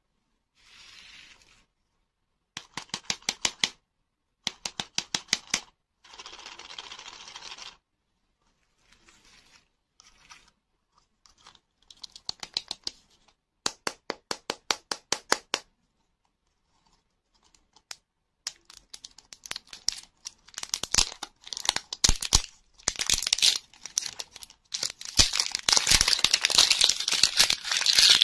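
Rapid tapping and scratching on plastic-wrapped lollipop balls in short bursts. From a little over halfway the crinkly plastic film wrapper of one Toybox ball is torn and peeled off, crackling louder and denser toward the end.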